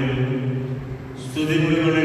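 A man chanting a liturgical blessing in long held notes; the chant breaks off briefly about a second in and resumes on a slightly higher note.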